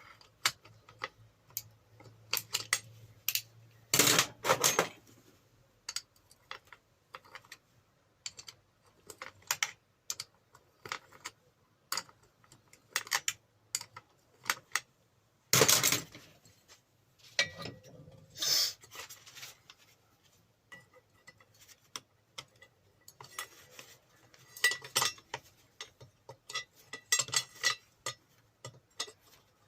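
Metal parts and tools clinking and clanking as a loosened part is worked off a grinder's shaft by hand: scattered light clicks with a few louder clanks.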